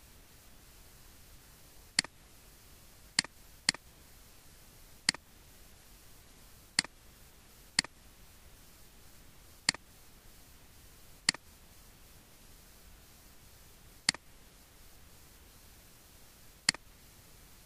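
Computer mouse button clicking, about ten single clicks at irregular intervals of one to three seconds, over a faint steady hiss.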